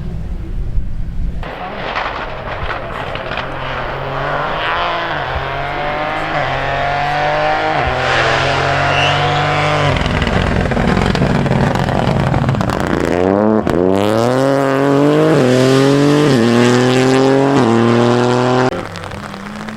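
Rally car engine accelerating hard, its pitch climbing and dropping back with each upshift, with a rapid run of gear changes about once a second in the second half. The sound drops suddenly near the end.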